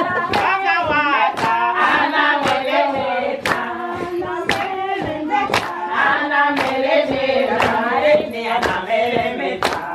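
A group of women singing together and clapping hands in a steady beat, about two claps a second.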